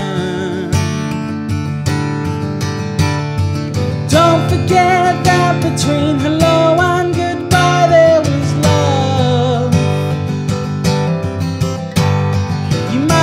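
Blueridge BR-40 acoustic guitar strummed steadily, with a man's voice singing a melody over it from about four seconds in.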